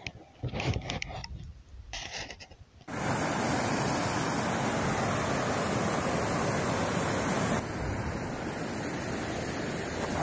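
Fast river running over boulders and carrying slush ice (shuga) and broken ice, a loud, steady rushing noise. It starts abruptly about three seconds in and eases slightly about two-thirds of the way through.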